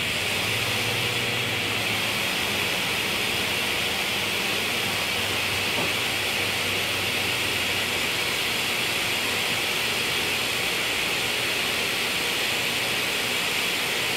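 Delta table saw and its shop-vacuum dust collector running steadily with the blade spinning free, no wood being cut: an even, loud hiss with a low motor hum that fades about two seconds in.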